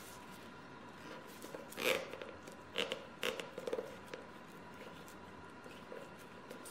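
Kitchen twine being pulled tight and knotted around a raw whole chicken: faint rasps of the string and soft handling sounds of fingers on the skin. The loudest comes about two seconds in, with a few shorter ones soon after.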